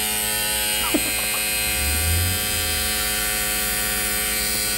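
Fanttik X8 Apex cordless tire inflator running steadily, its small electric motor and pump giving a constant hum as it inflates a car tire from about 38 toward a set 42 PSI.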